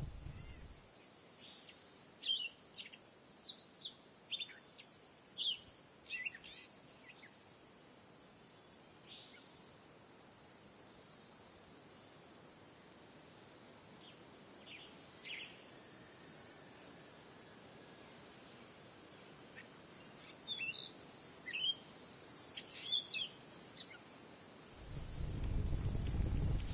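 Birds chirping in short scattered calls over a steady, high insect trill. Near the end a low rushing, water-like sound swells up.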